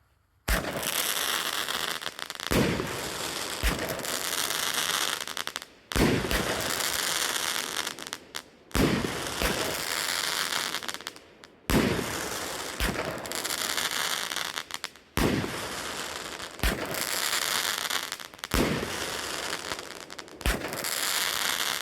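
BEM Jackpot 7-shot firework cake firing: a series of sharp launch reports every two to three seconds. Each is followed by a long crackling, hissing spell from the crackling tails, titanium breaks and time-rain stars.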